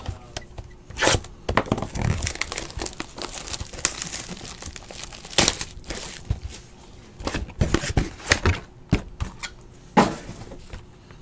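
Plastic shrink wrap being torn and crumpled off a trading-card hobby box: irregular crinkling with several sharp crackles.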